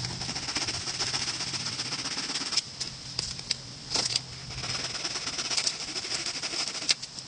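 A saw rasping through the hard, dried shell of a gourd in quick, scratchy strokes.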